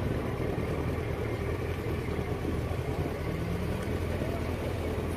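Motorcycle engines idling, a steady low drone.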